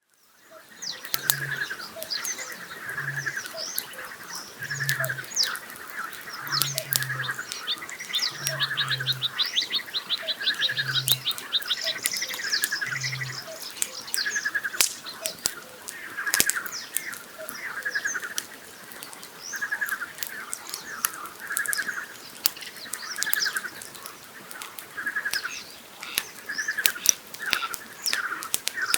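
A May-night lakeside chorus: frogs croaking over and over, a common nightingale singing fast trills and chirps, and a Eurasian bittern booming deep and low several times through the first half. Campfire wood crackles with sharp pops throughout.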